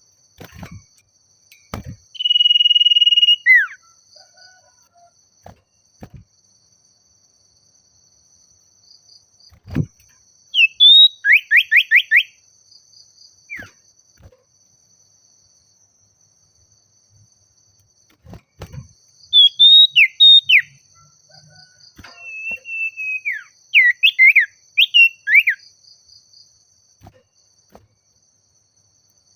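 Common iora (sirtu/cipoh) singing: a long held whistle about two seconds in that drops away at the end, then three bursts of rapid down-sweeping whistled notes later on.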